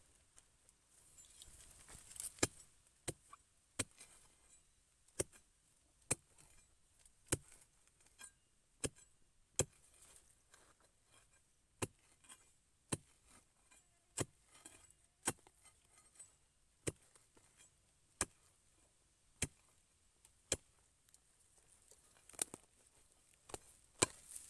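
A narrow metal spade chopping into soil and roots around a tree's root ball to dig it out. Sharp strikes come roughly once a second.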